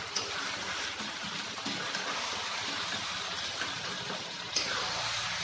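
Chicken pieces sizzling in oil and masala in an iron kadai, with a few clinks and scrapes of a metal spatula against the pan as it is stirred.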